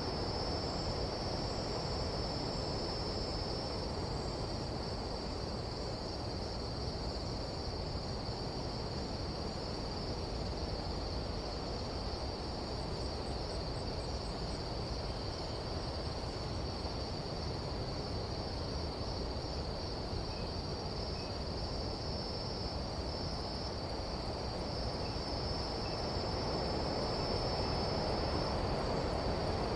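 Nighttime jungle insect chorus, a steady unbroken high-pitched buzz, over a low rushing of wind.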